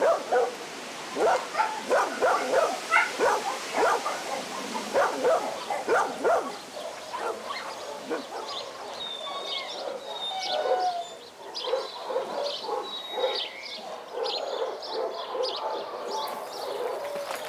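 Dogs barking in shelter kennels: a dense run of loud barks over the first seven seconds, then quieter, evenly repeated barking.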